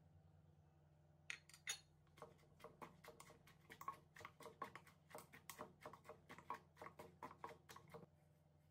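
A plate clinks twice as it is set down on the counter, then a pestle pounds steadily in a wooden mortar, about three knocks a second for some six seconds, as papaya-salad ingredients are crushed.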